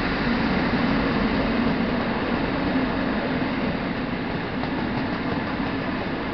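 A convoy of British Rail Class 56 and Class 60 diesel locomotives running coupled together and passing close by. There is a steady low engine drone over the rumble of wheels on rail, easing slightly after about four seconds.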